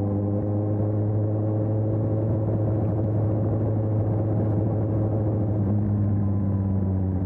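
Suzuki GSX-S750's inline-four engine running at steady revs through a Storm aftermarket exhaust, with a slight shift in its note about five and a half seconds in.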